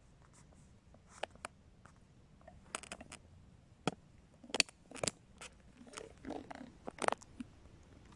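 A string of short clicks, taps and rustles at irregular intervals, the sounds of gear and clothing being handled close to the microphone.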